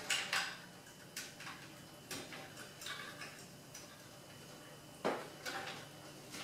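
Scattered small plastic clicks and rattles as wiring plugs are pulled off an espresso machine's main circuit board, the sharpest click about five seconds in.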